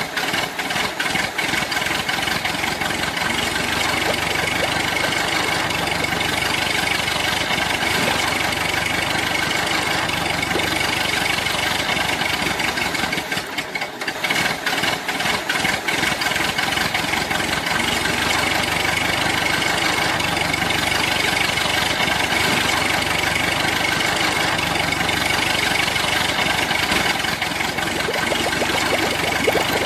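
An engine running steadily, with a short drop in level about fourteen seconds in.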